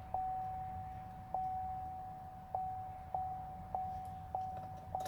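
Chevrolet Silverado dashboard warning chime, a single-pitched electronic tone struck seven times, at uneven gaps at first and then about every 0.6 s, each strike fading out as the next begins. It sounds as the instrument cluster cycles through its warning messages on a truck that won't crank, which the owner suspects is the computer not getting ground or 12 volts.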